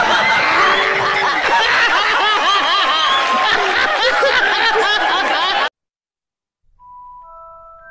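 A group of people laughing loudly together, many voices overlapping in hearty guffaws and cackles. The laughter cuts off suddenly near the end, and after a second of silence a few soft, held chime-like musical notes begin.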